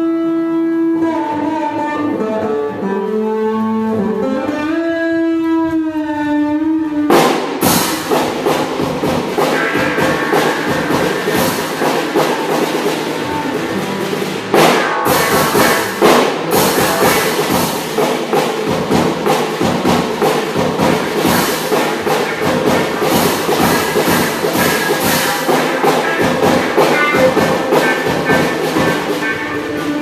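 Music accompanying a dance piece: a held droning tone with sliding, wavering pitches, which about seven seconds in cuts sharply into dense music with a strong, steady beat, briefly dropping out about halfway through.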